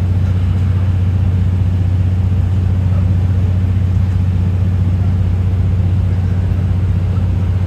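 Steady low drone inside a JNR 12-series passenger coach rolling slowly along. It is an even, unbroken hum with no clicks or changes.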